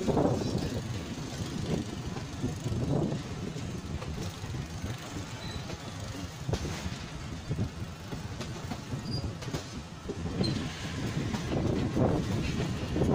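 Passenger train running, heard from on board: a steady rumble of wheels on the rails with irregular louder swells, growing louder near the end.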